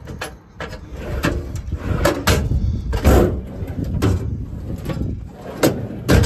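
Metal service-body compartment doors and latches being handled: a run of clicks, clunks and rattles, loudest about three seconds in and again just before the end.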